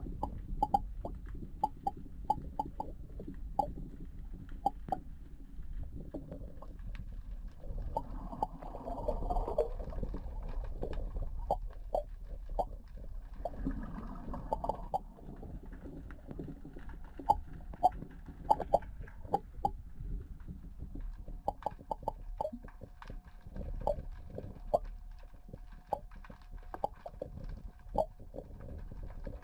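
Underwater camera recording at the sea floor: a steady low rumble of moving water with many scattered clicks and knocks, and a faint steady tone in the second half.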